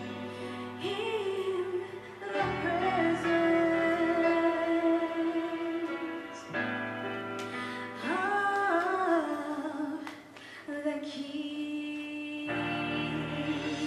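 Gospel vocal group singing slowly with instrumental accompaniment, a female lead voice holding long notes over sustained chords as the song winds down.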